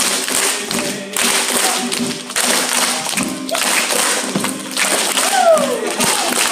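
A song played on acoustic guitar, with a room full of children and performers clapping along. A short falling call cuts across about five seconds in.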